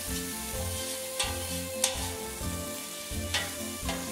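Olive oil and anchovies sizzling in a giant stainless-steel frying pan, with a metal spoon stirring and clinking sharply against the pan a few times. Background music plays underneath.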